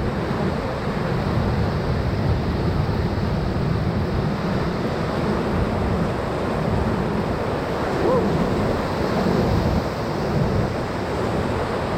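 Ocoee River whitewater rushing steadily around the raft.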